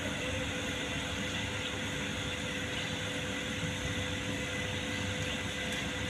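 Steady background hum with a faint constant tone; no distinct handling or mechanical events.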